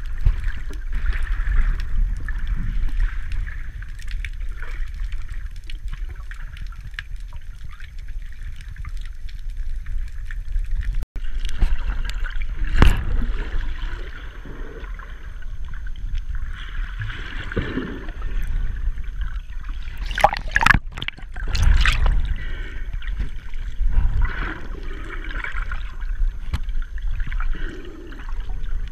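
Muffled water sloshing and churning heard through a camera underwater, over a steady low rumble, with a few sharp clicks and bursts, loudest about two-thirds of the way through.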